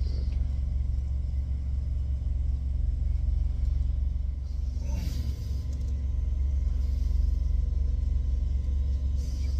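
A semi-truck's engine idling, heard from inside the sleeper cab as a steady low rumble. There is a brief rustle about five seconds in.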